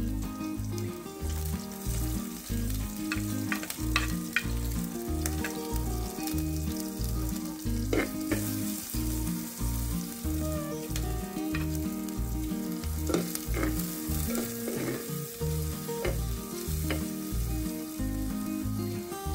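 Chopped onion sizzling as it fries in coconut oil in a clay pot, stirred with a wooden spoon, with now and then a sharper scrape or knock of the spoon against the pot.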